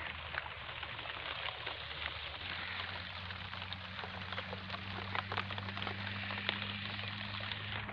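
Rain pattering on the leaves and ground of a cauliflower field: a steady hiss dotted with many small drop ticks. A steady low hum runs underneath, firmer from about two and a half seconds in.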